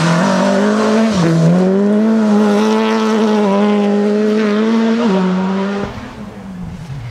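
Rally car engine at high revs passing at speed. The pitch dips briefly about a second in and climbs again, holds high, then drops away near the end.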